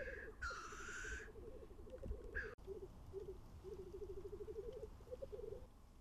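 Male black grouse giving their courtship display calls: a low, rapidly pulsed bubbling coo that rolls on almost without a break and stops shortly before the end, with a hissing sneeze-like call about half a second in that lasts under a second.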